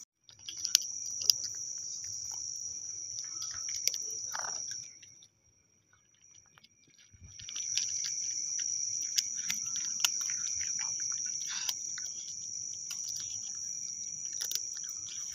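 Night insects trilling steadily in a high, unbroken chorus, with scattered small clicks of a cat crunching dry kibble. The sound cuts out for about two seconds a little over five seconds in, then returns.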